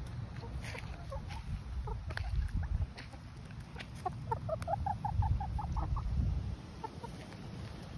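Chickens clucking: a few scattered soft clucks, then about four seconds in a quick run of about ten short clucks that rise and fall in pitch, over a low rumble on the microphone.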